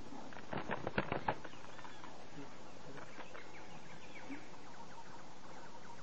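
A woodpecker striking at a snake in its nest hole in a dead tree trunk: a quick, irregular run of about eight sharp knocks about half a second in. Faint bird chirps follow.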